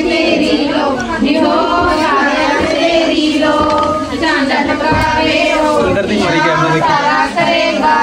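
A group of children singing a Punjabi Lohri folk song together, the door-to-door song sung to ask for Lohri offerings.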